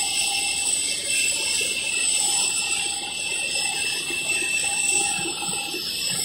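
An airliner's jet turbine running on the apron: a steady high whine and hiss with several high tones held throughout.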